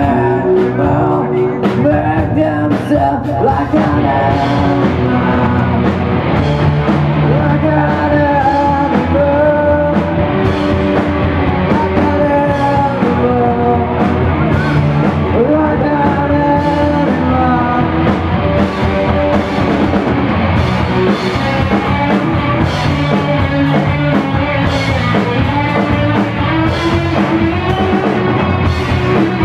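Grunge rock band playing loud and live: distorted electric guitars, bass and drums with a singer, the drums striking at a steady beat.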